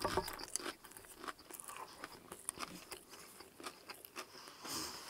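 Close-miked chewing of a potato chip: a run of small, crisp crunches with wet mouth sounds, and a short breath blown out near the end.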